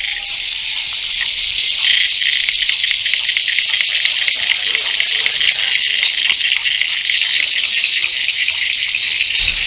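A dense, steady chorus of calling frogs or insects in flooded ground: rapid, high-pitched trilling that never lets up. A brief low thump near the end.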